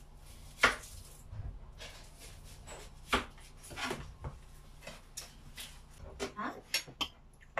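Dishes and a phone knocking and clattering on a table as they are handled and set down: a sharp knock about half a second in, two more around the middle, and a quick run of lighter clinks near the end.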